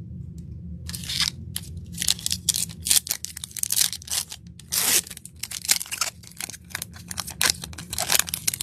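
Trading cards being handled between call-outs: a quick, irregular run of crisp scraping and crackling rustles as card stock slides against card stock and packaging.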